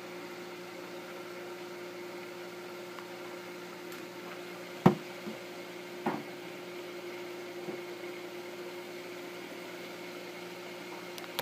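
Steady electric motor hum from a kitchen appliance, broken by a sharp knock about five seconds in and a smaller knock about a second later.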